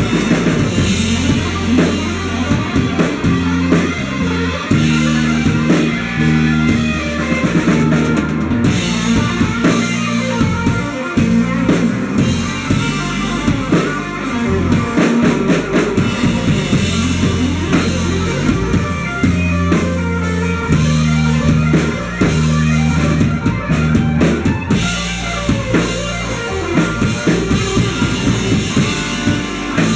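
Live rock band playing an instrumental passage: electric guitars, bass guitar and drum kit, loud and steady, with no singing.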